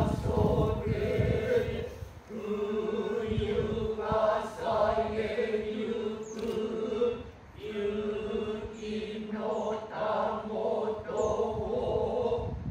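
Noh chant (utai): voices holding long, slowly wavering notes, with two short breaks, about two and seven and a half seconds in.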